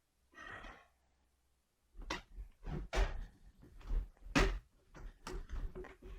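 Plastic bottom cover of a Dell laptop being pried open: a brief scrape, then a run of sharp clicks and snaps as the cover's clips pop loose, the loudest about four and a half seconds in.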